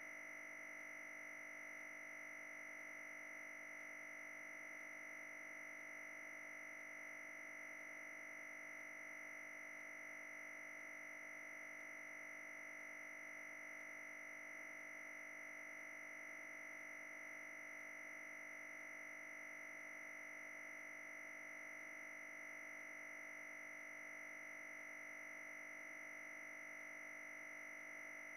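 Faint, steady electrical whine made of several constant tones, the strongest one high-pitched. There is no grinding or machine noise from the crusher.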